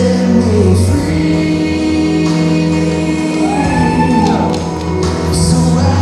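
Worship song playing loud: a singer's voice over long sustained backing chords, the sung line rising and falling about halfway through.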